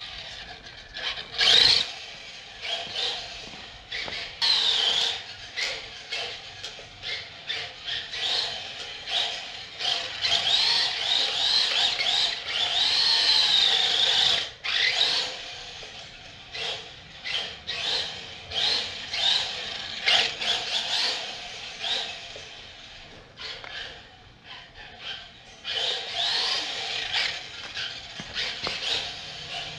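LaTrax 1/18-scale electric RC car driving on a hardwood floor: its motor and gears whine, rising and falling in pitch as the throttle is blipped over and over, with short squeals as the tyres skid on the wood.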